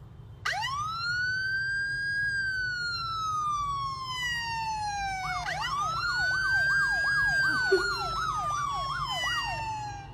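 Emergency vehicle siren: a slow wail rising and then falling in pitch. About halfway through, a second siren joins with a fast yelp, about two sweeps a second, under a new slow wail.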